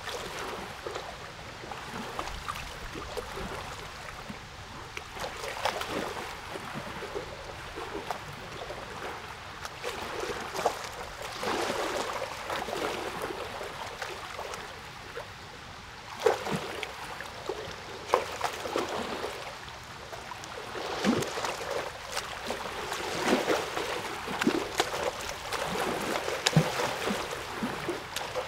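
Water running and splashing, with many small splashes rising and falling in uneven swells.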